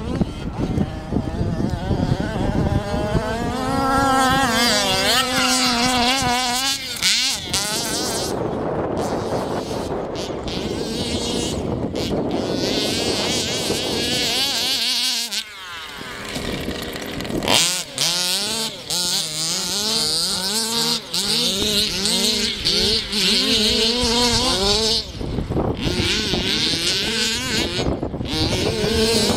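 Small two-stroke engines of large-scale petrol RC buggies revving hard and backing off as they race on dirt, their pitch climbing and falling over and over, with two engines heard at once at times.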